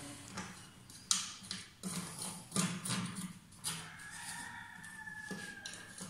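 Plastic clicks and knocks as the plastic mounting frame of a concealed-cistern flush push-button plate is handled and fitted on the wall, several sharp separate clicks, the loudest about a second in.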